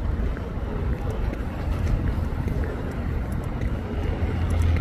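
Street traffic noise: a steady low rumble of road vehicles.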